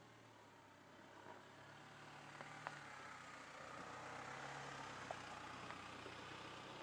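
Toyota Land Cruiser Prado's turbo diesel engine running at low revs as the SUV crawls slowly past over a rocky gravel track, growing louder as it comes closer. A few sharp clicks of stones under the tyres.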